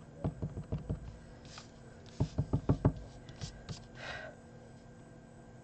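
A stamp being tapped repeatedly onto an ink pad to ink it: a few soft taps at first, then a quick run of five louder taps about two seconds in, with light rustles of paper.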